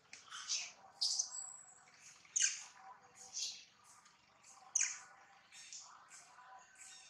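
A string of short, shrill animal calls, each falling sharply in pitch, about a dozen in all, the loudest coming about one, two and a half and five seconds in.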